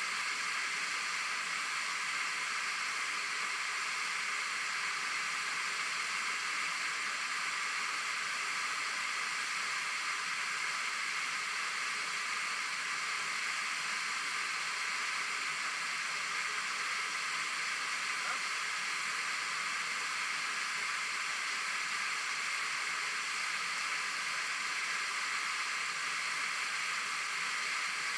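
Waterfall: the steady rushing of falling water, even and unbroken.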